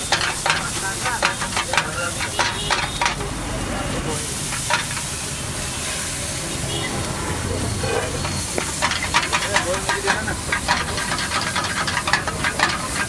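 Omelette masala sizzling in a steel wok over a gas flame, with a metal spatula rapidly clanking and scraping against the pan. The clanking thins out in the middle while the frying hiss carries on, as the pan flares up.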